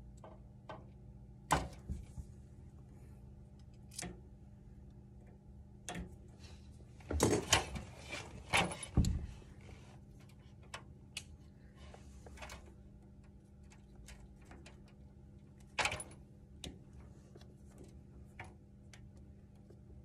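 Knife cutting and scraping the outer jacket of half-inch LDF4-50A coaxial cable: scattered clicks and short scrapes, with a cluster of louder scraping about seven to nine seconds in. A steady low hum runs underneath.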